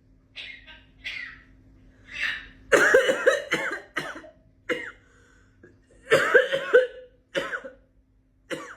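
African grey parrot imitating a person coughing: a few soft breathy huffs, then a run of loud quick coughs about three seconds in, single coughs, another loud run about six seconds in, and a couple more single coughs near the end.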